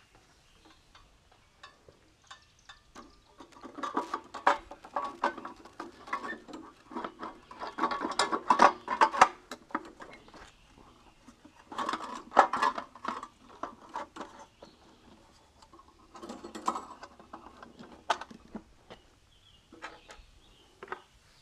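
Handling noise of a lawn mower's recoil starter housing being fitted back onto the engine: several bursts of small knocks, scrapes and rattles with pauses of a few seconds between them, and a sharper click about 18 seconds in.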